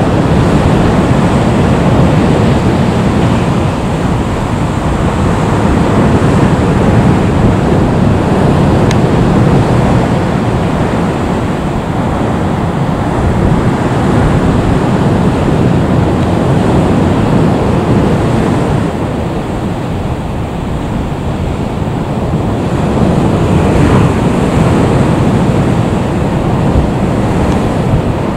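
Steady, loud rumbling noise of wind buffeting the microphone, mixed with the jet engines of a Boeing 737 MAX 8 running at low taxi power.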